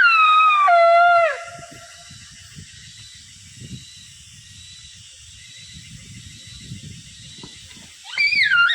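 Loud, clear animal calls: the first slides down in pitch in several steps over the first second and a half, and a second one rises and then falls near the end. A faint steady high tone runs beneath them.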